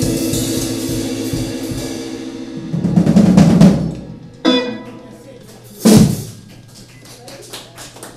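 A live band's closing chord on electric guitar and bass rings out and fades. Then the drum kit plays a roll about three seconds in, followed by two final hits, the second and louder one about six seconds in. Faint scattered taps follow near the end.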